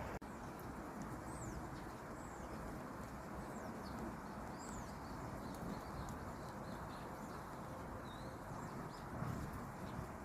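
Small birds chirping, many short high chirps scattered throughout, over a steady low rushing noise.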